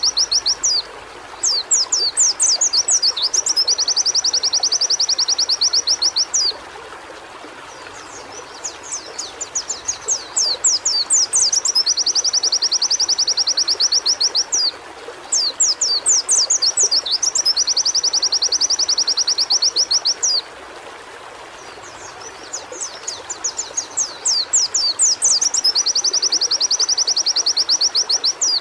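A white-eye (pleci) singing in repeated bouts about every seven seconds: each bout is a run of rapid, high, sweeping notes followed by a fast, even trill lasting a few seconds. A steady hiss like running water lies under the song.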